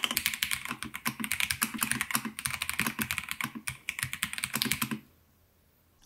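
Fast, continuous touch typing on a MIIIW BlackIO 83 mechanical keyboard with Jellyfish linear switches, a dense run of keystroke clicks that stops abruptly about five seconds in.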